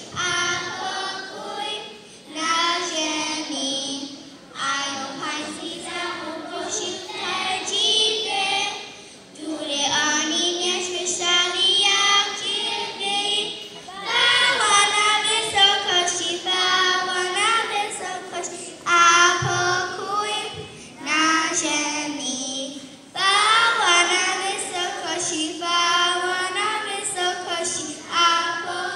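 A group of children singing together, in phrases of a few seconds with short breaks between them.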